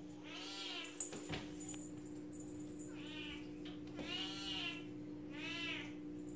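Kitten meowing four times in high, drawn-out calls, with a sharp knock about a second in. A steady low hum runs underneath.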